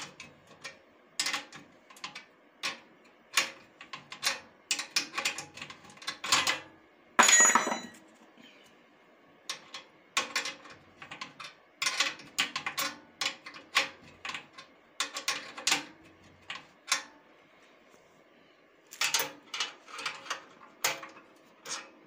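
Irregular metallic clicks and knocks as a nut and bolt and steel brackets under an industrial sewing machine table are handled and fitted, with one longer, louder clatter about seven seconds in and short pauses between clusters of clicks.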